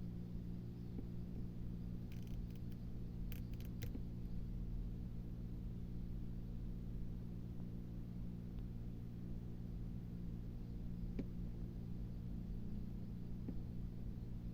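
Steady low hum made of several even tones, with a short cluster of faint sharp clicks about two to four seconds in and two single faint ticks later.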